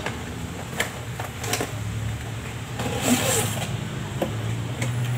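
A cardboard toy-car box and its plastic packaging being handled and opened: rustling and scraping with a few sharp knocks, the loudest about three seconds in, over a steady low hum.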